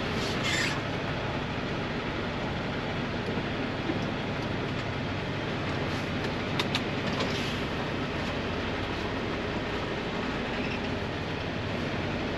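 Semi-truck's diesel engine running at low speed, heard inside the cab as a steady rumble, with a couple of short clicks about halfway through.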